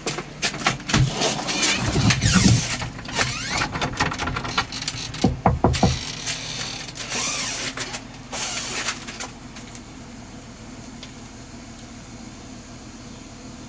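Clicks and clattering from a storm door's handle and latch, then a quick run of knocks on a wooden front door about five seconds in. After some rustling, only a faint steady background noise is left.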